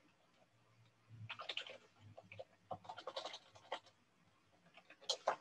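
Faint computer keyboard typing, with irregular runs of short key clicks, as a username and password are entered. A few sharper clicks come near the end.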